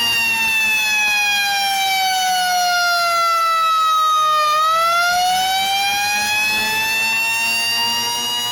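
Loud fire truck siren wailing: its pitch slides slowly down for about four seconds, then climbs back up to where it started.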